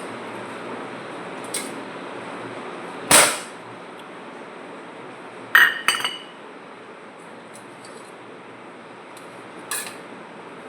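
Dishes and utensils being handled: a knock about three seconds in, then two ringing metallic clinks near the middle and a light click near the end, over a steady background hiss.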